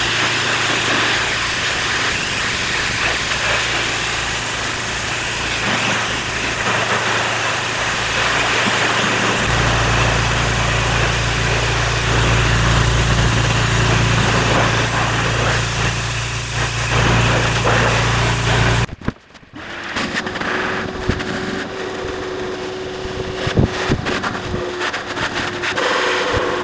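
Pressure washer jetting water onto brick planter walls and patio paving: a steady hissing spray over the pressure washer's motor drone, which grows stronger about a third of the way in. About two-thirds of the way in it cuts off suddenly, and a quieter steady hum with scattered clicks follows.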